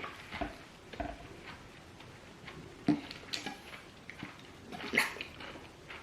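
Eating sounds of banku with okra soup: scattered short wet clicks and smacks of chewing and mouth noises, a few louder ones about three and five seconds in.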